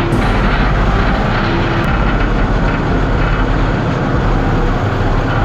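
A loud engine running steadily, from the chainsaw or skid steer at work on the fallen logs.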